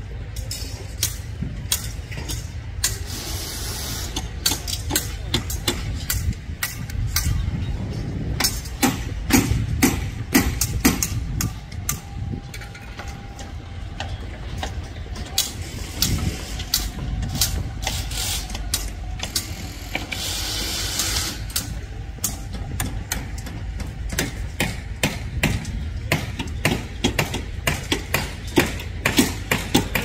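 Construction site noise: irregular knocks and clanks of work on the site's steel and formwork, many sharp strikes at uneven spacing, over a steady low rumble.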